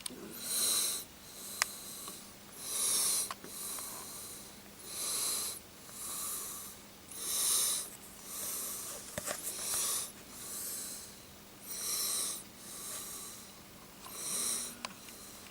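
Heavy breathing close to the microphone: a steady run of loud, hissy breaths in and out, roughly one a second, with a few faint clicks between them.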